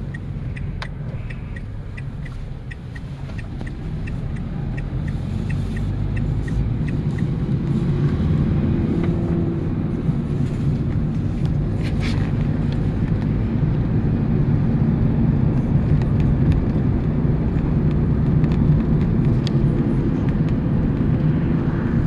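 Engine and road rumble inside a moving vehicle's cabin, growing louder over the first eight seconds as it pulls away and then holding steady. A light ticking, about twice a second, runs through the first seven seconds.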